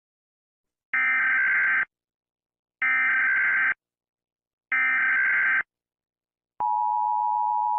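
Emergency Alert System SAME header: three identical bursts of warbling data tones, each about a second long and about a second apart. About six and a half seconds in, the steady two-tone EAS attention signal begins, marking the start of an emergency alert broadcast.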